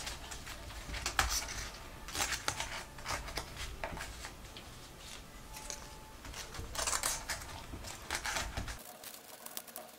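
Strips of cardboard rustling and scraping against a shallow metal tin as they are pushed down and packed tightly into it. Irregular short scuffs and clicks come in clusters.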